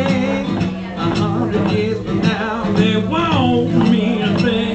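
Acoustic guitar and blues harmonica playing an instrumental passage. The harmonica plays wavering, bending notes over the steady guitar.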